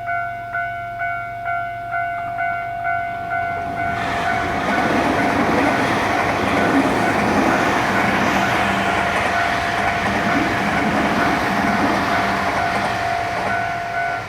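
Japanese level-crossing warning bell ringing about twice a second, then a train passes through the crossing from about four seconds in. Its wheel and running noise covers the bell's strikes until it fades near the end.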